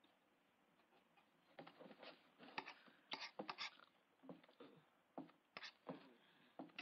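Someone eating beans hungrily: a spoon clinks and scrapes against a tin plate in short, irregular strokes that start about a second and a half in.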